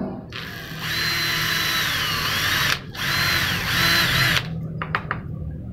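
Handheld electric drill boring through thin sheet steel. It runs for about four seconds with a short break near the three-second mark, its whine dipping in pitch twice and recovering. A few light clicks follow near the end.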